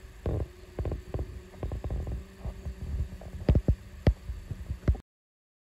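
Irregular low thumps and knocks, a few with a sharper click, over a faint steady hum, stopping dead about five seconds in.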